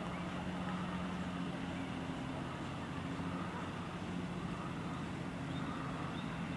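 A steady low mechanical hum, even throughout.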